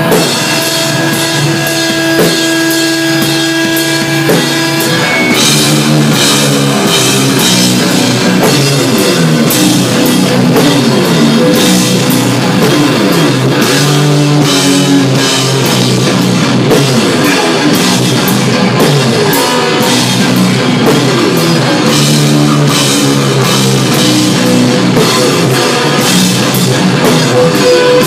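Heavy metal band playing live: a Tama drum kit pounding under loud distorted electric guitars, dense and continuous.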